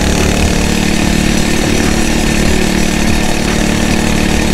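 Phatmoto Rover 79cc motorized bicycle's small single-cylinder four-stroke engine running steadily under way, without revving up or down.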